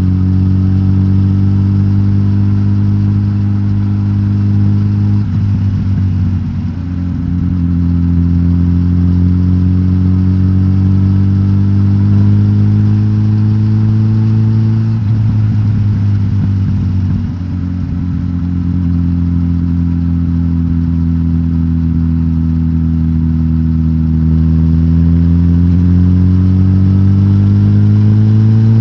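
Suzuki GSX-S1000GT's inline-four engine, de-catted on its stock exhaust, pulling under way. The engine note climbs slowly and drops with an upshift about five seconds in and again about fifteen seconds in. It then holds nearly steady and climbs again near the end.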